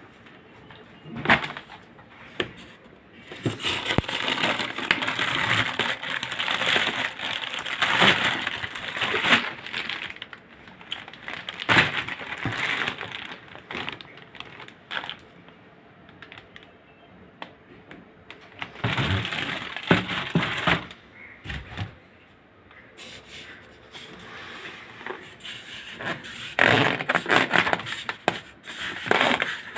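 Packaging being handled and pulled off during unboxing: irregular crinkling and rustling with sharp clicks and knocks, coming in bursts with quieter pauses between.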